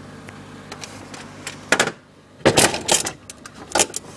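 Handling noise of hard plastic: a run of sharp knocks and scrapes beginning about one and a half seconds in, loudest a little past halfway. A faint steady hum sits under the first part.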